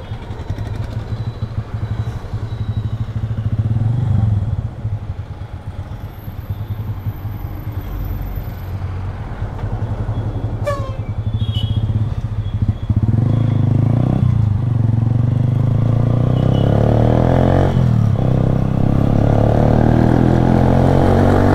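Honda CB Shine 125's single-cylinder four-stroke engine through an aftermarket Akrapovic carbon-fibre exhaust with its dB killer out, ticking over at low revs. About 13 s in it gets much louder as the bike pulls away and revs up through the gears. Other traffic can be heard around it.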